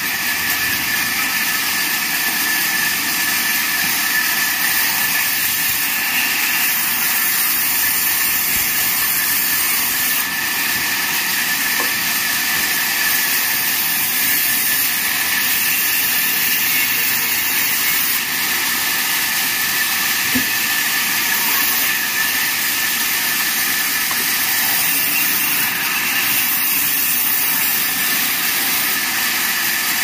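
Vertical band sawmill running, its band saw blade cutting through planks as they are fed along the table: a steady, loud, high hiss with a constant high whine.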